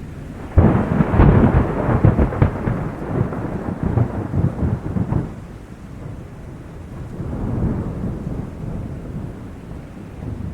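A thunderclap starting suddenly about half a second in, crackling and rumbling for about five seconds, then a softer second rumble swelling and fading, over steady rain.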